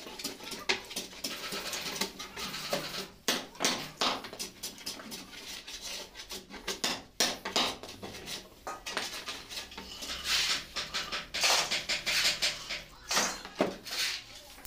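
Irregular knocks and clatter of hard wooden pieces being handled and shifted on a workbench, with sharp taps scattered throughout and a denser stretch of clatter and scraping toward the end.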